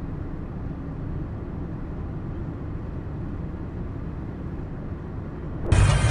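Steady low rumble, like wind or a vehicle heard from outside. About five and a half seconds in, it cuts abruptly to a louder vehicle engine running.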